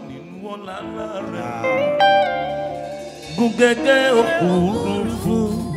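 Live praise-and-worship band music, with guitar and a voice singing gliding, bending lines.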